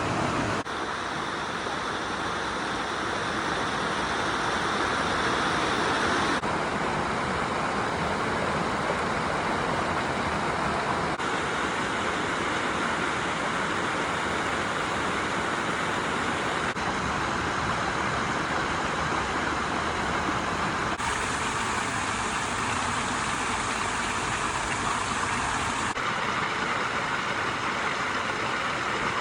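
Stream water rushing steadily, its tone shifting abruptly every five seconds or so.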